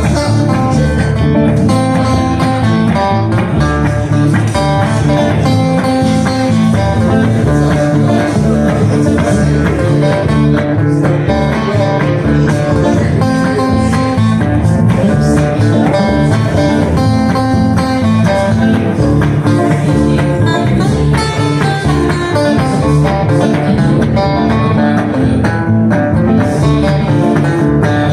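Instrumental break of a live acoustic blues song: acoustic guitar picking a lead line over strummed rhythm guitar and a walking bass, with no vocals.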